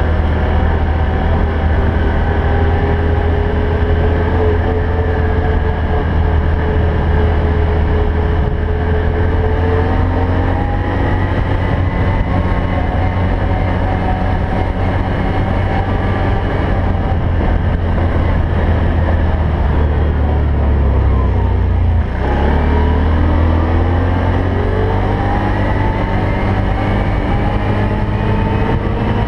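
ATV engine running under way, heard from on board the quad, its pitch wavering with the throttle. A little past two-thirds through, the engine note drops away briefly and then climbs again as the quad speeds back up.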